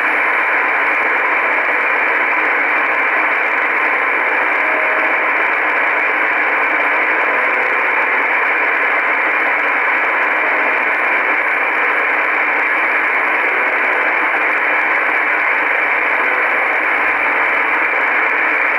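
Shortwave receiver in upper sideband on 4625 kHz giving a steady band of static hiss, with the buzzing tone of the Russian 'Buzzer' station (UVB-76) just barely above the noise floor.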